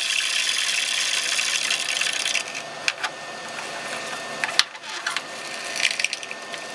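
A block of dry ice pressed on a running Pentium 4's bare CPU, screeching and chattering against the hot metal in a high-pitched racket. The racket stops about two and a half seconds in, leaving a quieter steady noise with a few sharp ticks.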